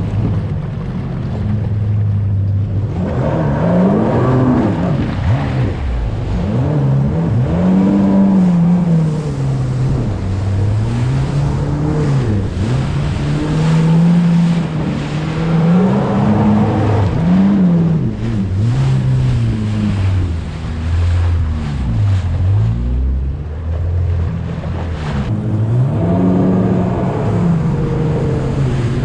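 Jet ski engine running at speed, its pitch repeatedly rising and falling every few seconds as the throttle and load change over the waves.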